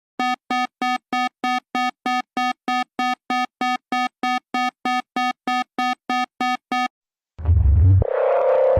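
Emergency alert alarm: a buzzy electronic beep repeated about three times a second for about seven seconds. After a brief gap, a louder, harsh low buzzing alert tone starts.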